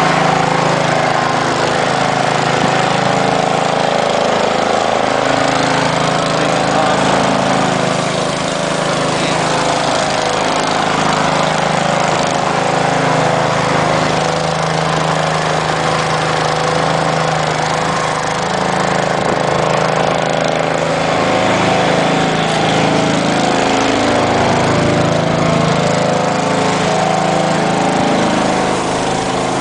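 An engine running steadily and close by, its pitch shifting a little now and then.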